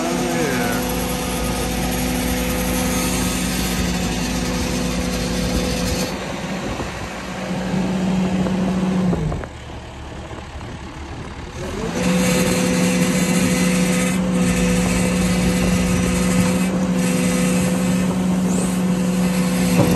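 Cat mini excavator's engine and hydraulics running steadily under load as it holds a piling, a constant hum that falls away about halfway through and comes back about two and a half seconds later.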